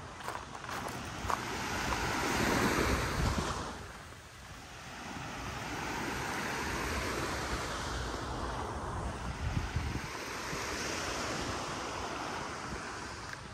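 Surf washing up the beach, swelling to its loudest a couple of seconds in, falling away about four seconds in, then building again, with wind buffeting the microphone.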